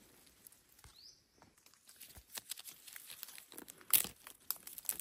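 Dry leaves and plant stems rustling and crackling in irregular bursts, with a sharper crack about four seconds in.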